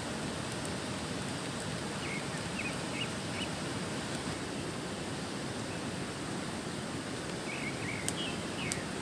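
Steady rushing outdoor ambience, with two brief runs of short bird chirps, a few seconds in and again near the end. Two sharp clicks sound close to the end.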